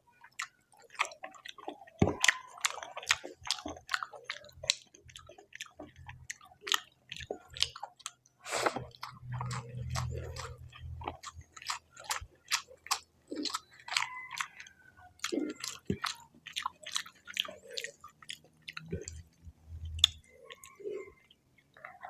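Close-up chewing and biting of fatty pork with rice: a dense, irregular run of short wet clicks, with a brief low hum about halfway through and again near the end.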